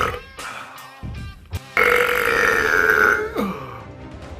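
A man belching: the tail of one burp at the start, then a long, loud burp held at one pitch for about a second and a half that drops in pitch as it ends.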